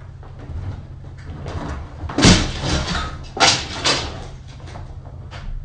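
Several loud knocks and a clattering crash about two seconds in, then two more heavy knocks near three and a half and four seconds, over a steady low hum. It sounds like the board and the weights piled on it shifting and being knocked, a mishap that jars the amp's reverb tank.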